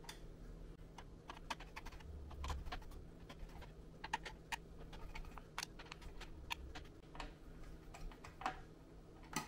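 Faint, irregular small clicks and ticks of a screwdriver working the corner screws of a CPU fan-and-heatsink assembly into the motherboard.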